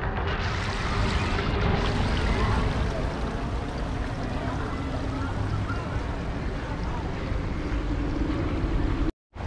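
Wind buffeting the camera microphone: a steady low rumble and hiss over faint outdoor background noise. It cuts out for a moment near the end.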